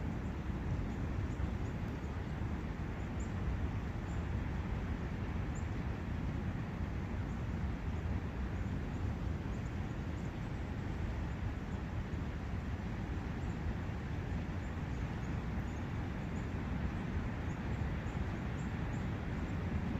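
Steady forest ambience of wind and a flowing brook, a constant low rushing hiss, with scattered faint high bird chirps.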